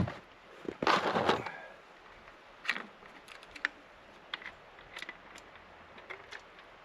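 Handling noise: a sharp knock at the start, a short scraping rustle about a second in, then scattered light clicks and taps, as the chainsaw and its fuel and bar-oil containers are handled ahead of fuelling. The saw is not running.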